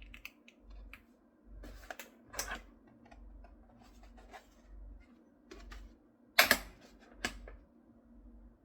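Hands working on small hard parts: scattered clicks, taps and short scrapes, with one sharp clack about six and a half seconds in.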